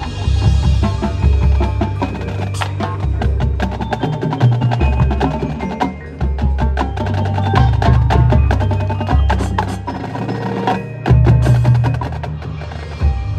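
High school marching band playing, percussion-heavy: drumline strikes and front-ensemble mallet keyboards over a deep bass.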